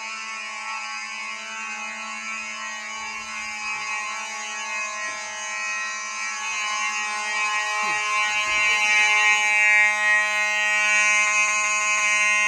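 Fire alarm horns, a Faraday 5505 horn strobe among them, sounding in alarm with one continuous buzzing tone after the pull station was pulled. The tone gets louder in the second half.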